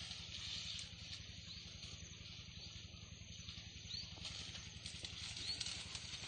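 Faint outdoor forest ambience: a steady hiss with a series of short, high, rising chirps about half a second apart, over a low steady hum.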